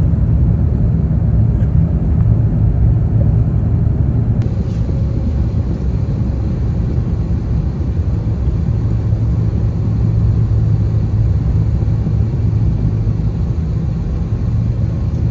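Steady low rumble of an Airbus A350 airliner heard from inside the passenger cabin.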